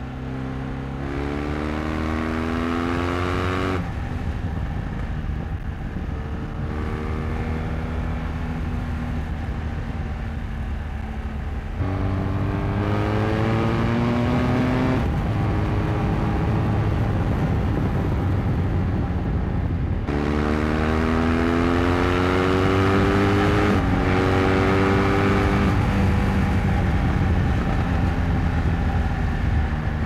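BMW R1200RS's boxer-twin engine on its standard exhaust, heard from the rider's seat, accelerating through the gears: the engine note rises, then drops back at each upshift, several times over, with wind noise underneath that grows as speed builds.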